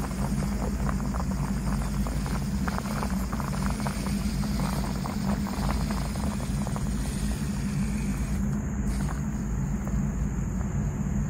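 Small 1/24-scale RC rock crawler (custom SCX24 build) crawling over gravel and concrete rubble: its small electric motor and gears whir steadily with a thin high whine, and many small clicks and crunches come from the tyres and grit, over a steady low rumble.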